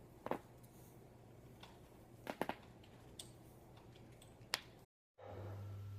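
Joints cracking during an adjustment: a sharp pop just after the start, a quick run of three pops about two seconds in, then single pops. Near the end the sound drops out briefly and a steady low hum comes in.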